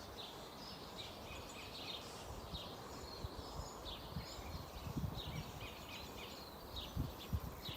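Forest birds singing, a steady scatter of short high chirps and warbles over a faint even background hiss, with a few soft low thumps about five and seven seconds in.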